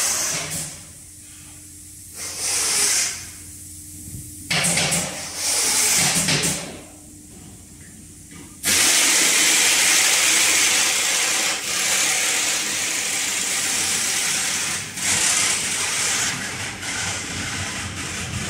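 Hissing noise in a factory workshop: two separate bursts a couple of seconds apart, then a steady hiss from about nine seconds in that drops a little after fifteen seconds.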